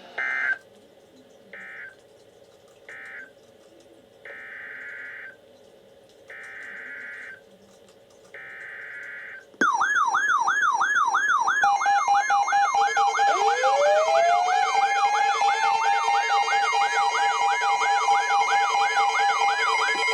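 Weather radio alert data bursts: six short buzzy tones about a second or two apart. About halfway through, a much louder mix of sirens takes over: a fast up-and-down electronic wail, then a siren winding up to a steady tone underneath it.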